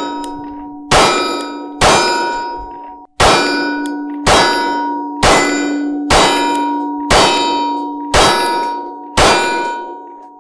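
Nine 9mm shots from a Springfield Hellcat Pro pistol, fired at an even pace of about one a second. Each shot is followed by a long metallic ring from a steel target. The string runs without a stoppage.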